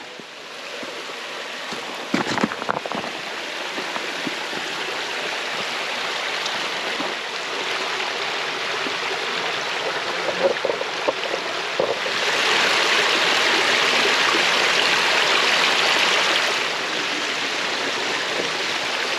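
Creek water flowing in a steady rush. A few knocks come about two seconds in, and the rush grows louder for a few seconds partway through.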